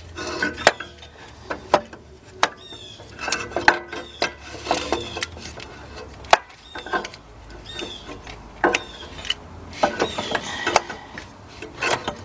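Irregular metal clunks, clicks and scrapes of a loose starter motor being twisted and knocked against the engine and frame while it is worked out from under a 2003 Jeep Liberty.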